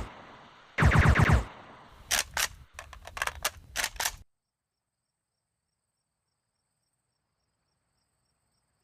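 Suppressed Uzi submachine gun firing: one short full-auto burst of about ten rapid shots about a second in, then a few shorter bursts and single shots, stopping abruptly a little past the middle, after which there is silence.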